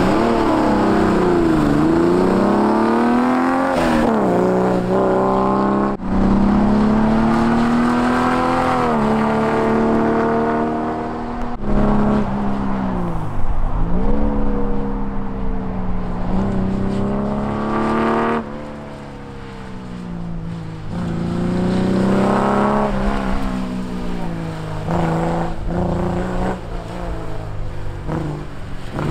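Triumph TR-series sports car engine accelerating hard through a timed run. Its pitch climbs and then drops sharply again and again as the driver changes gear and lifts off for the bends. It eases off for a few seconds past the middle.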